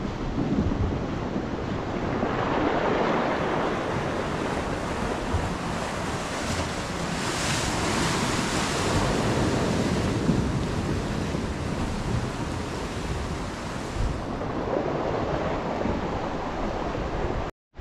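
Surf and rushing river water breaking over rocks below a suspension bridge, a steady roar that swells and eases in slow surges, with wind buffeting the microphone. The sound cuts out abruptly for a moment near the end.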